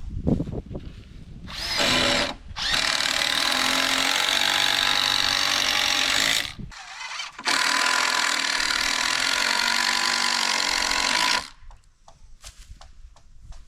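Power drill driving screws into the wooden foundation framing, in three runs: a short one about two seconds in, then two of about four seconds each, with brief pauses between.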